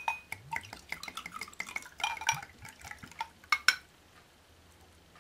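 Liquid poured from a glass bottle into a drinking glass: a ringing clink of glass on glass, then gurgling and glugging for about three and a half seconds, with a couple more clinks as the pour ends.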